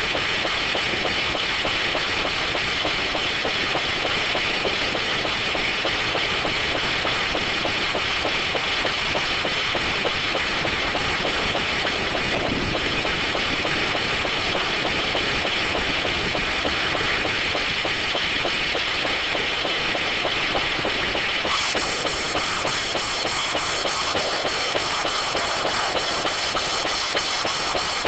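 D9 circular sawmill running, a steady loud mechanical noise with a fast, even rattle.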